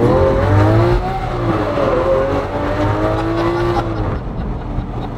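Lamborghini Aventador LP700-4's 6.5-litre V12, with an Fi Exhaust valvetronic system, accelerating hard as heard from inside the cabin. The pitch climbs through the gears with breaks at the shifts, then eases off about four seconds in.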